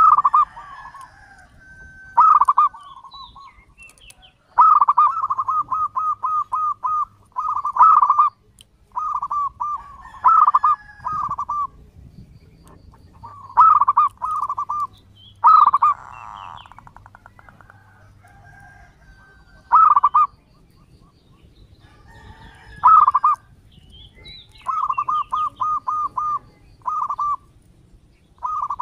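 Zebra dove (perkutut) cooing. Phrase follows phrase, each a strong opening note often followed by a quick run of short staccato coos, with pauses of a second or more between phrases.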